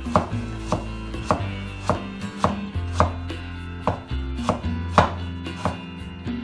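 A Chinese cleaver chopping a carrot into thin strips on a bamboo cutting board: crisp, even knocks of the blade on the board, about two a second.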